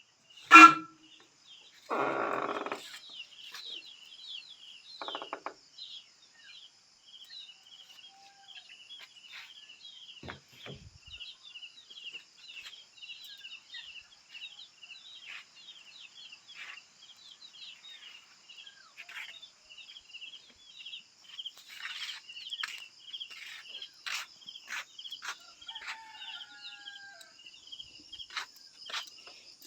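A sharp knock about half a second in, then a rooster crows briefly. After that a steady high buzz and rapid, repeated chirping run on, with scattered clicks near the end.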